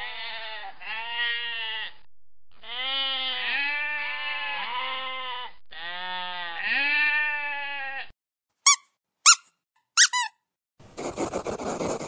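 Sheep bleating over and over for about eight seconds, in long, quavering bleats at slightly different pitches. Then come three short, high squeaks, and near the end a hedgehog rustling and snuffling through grass.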